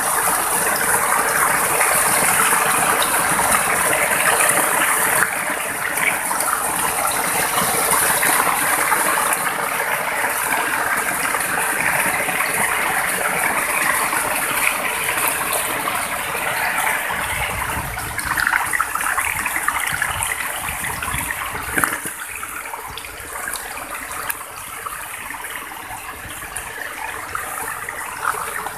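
Small waterfall on a forest stream: water pouring steadily over rocks and grass, a continuous rushing splash that eases a little in the last several seconds.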